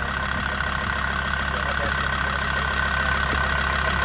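A 4x4's engine running steadily at idle, with a steady high whine above it.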